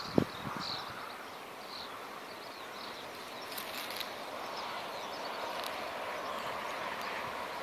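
Outdoor rural ambience: small birds chirping here and there over a steady background hiss, with one sharp click just after the start.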